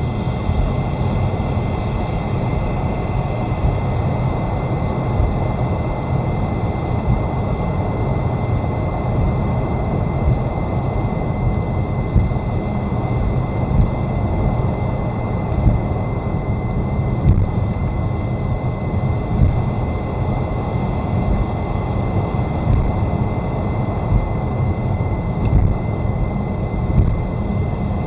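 Car cabin while driving: steady road and drivetrain rumble with a thin, constant high-pitched whistle of unchanging tone. The whistle comes on during engine braking on a closed throttle and does not follow engine revs; the owner cannot tell whether it is the alternator belt and idler, the alternator, the AC compressor, the oil pump or the turbo.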